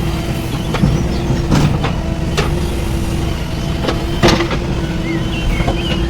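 Diesel engine of a JCB 3DX backhoe loader running steadily, with a few sharp knocks; the loudest knock comes a little past four seconds in.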